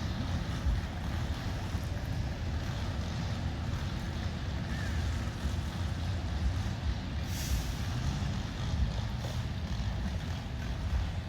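Steady low rumble of vehicle traffic, with a short hiss of air about seven and a half seconds in.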